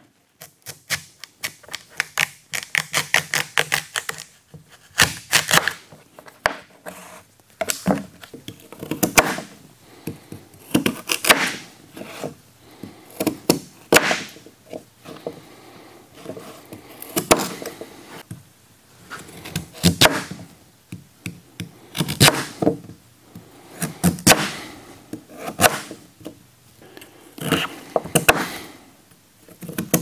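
Chef's knife chopping a raw sweet potato into cubes on a plastic cutting board: a quick run of blade strikes on the board at the start, then slower, irregular chops and thunks.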